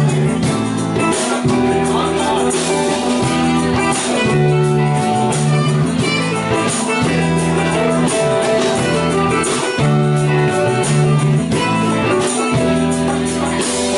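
Live band with saxophone and keyboard playing an instrumental passage over a steady bass line and beat.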